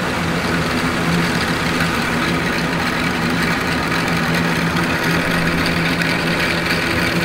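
Small DC motor of a 3D-printed model paddle boat, powered by a single AA battery, running steadily and spinning the two paddle wheels in the air with an even whir.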